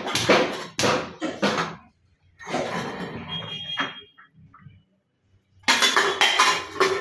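A woman coughing in short harsh bursts and hawking up phlegm, with a pause of about a second near the middle and a dense run of coughing near the end. It is a chesty cough bringing up phlegm that has built up for days.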